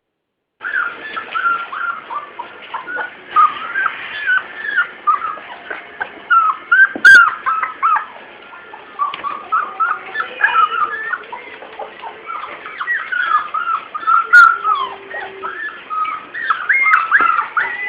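Golden retriever puppy whining and yelping: a busy run of short, high whimpers that slide up and down, many each second, with a sharp click about seven seconds in and another near fourteen seconds.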